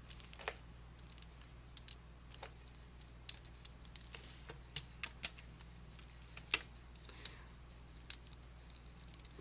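Scattered light plastic clicks and taps, irregular and a second or so apart, from a Lego Technic balisong's pieces and handles being handled and swung.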